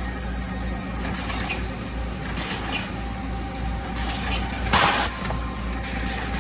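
Automatic cat food pouch sorting and orientation machine running with a steady mechanical hum and a few faint short hisses, then a short, loud hiss of compressed air a little under five seconds in.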